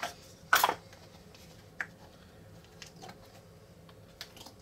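Off-camera handling of a plastic Orbeez bottle and bowls: a short rustling scrape about half a second in, then a few light clicks and taps.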